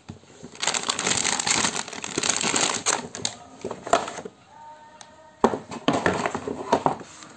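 Crinkling of a shiny metallic anti-static bag being handled, loud for about two seconds, then quieter rustling with a few sharp clicks and knocks as things are moved about in the cardboard box.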